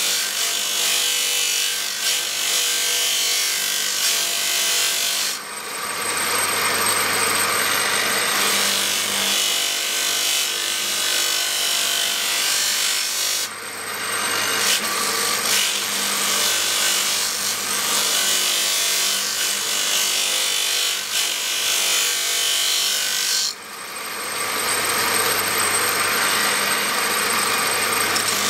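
Steel knife blade being ground on a motor-driven abrasive wheel: a continuous harsh grinding noise. It dips briefly about five, thirteen and twenty-three seconds in, and for a few seconds after each dip a steady motor hum and a high thin whine show through.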